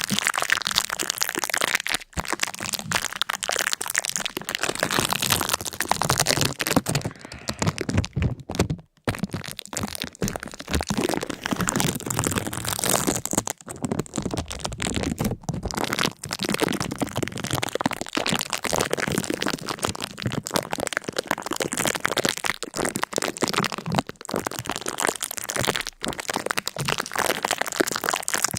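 Dense, continuous crackling and cracking, many fine clicks packed close together, with a few brief breaks, the longest about nine seconds in.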